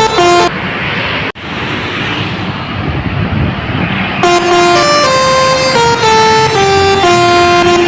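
Bus 'telolet' musical horn playing a quick tune of stepped notes, stopping for a few seconds of noise with a sudden brief drop-out, then starting up again with another run of notes.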